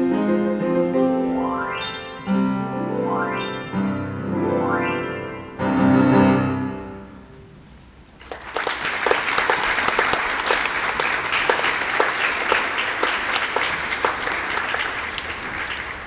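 Upright piano playing the closing bars of a piece: chords broken by three quick upward runs, ending on a final chord that rings and fades. About a second later an audience applauds.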